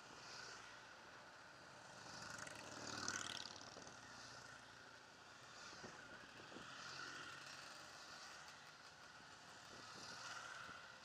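Faint engine noise of a group of motorcycles riding slowly together, swelling louder about three seconds in.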